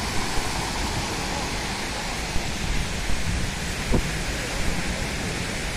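Surf breaking on a sandy beach as a steady rushing hiss, with wind buffeting the microphone in a low rumble.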